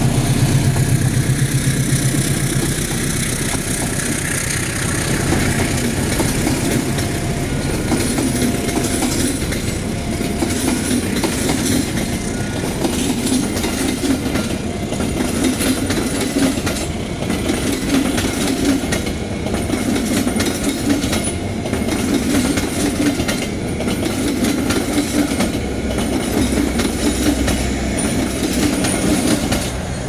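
Passenger train passing at speed: a diesel locomotive's engine hum fades in the first couple of seconds. Then the steady rumble of the coaches rolling by, their wheels clacking over rail joints about every two seconds.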